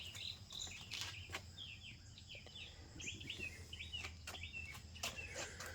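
Birds chirping: many short, quick chirps in an irregular run, with a few sharp clicks in among them.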